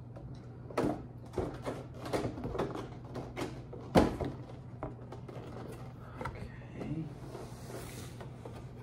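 Cardboard retail box being handled and worked open with a small blade: a run of taps, scrapes and light knocks, the loudest a sharp knock about four seconds in as the box comes down on the wooden table. Near the end comes a soft hiss of the blade slitting tape along the box's edge.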